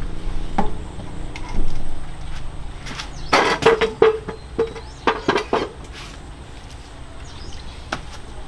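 Clatter of household objects being picked up and handled: a few single knocks, then a quick run of sharp clicks and knocks about three to six seconds in, some with a brief ring.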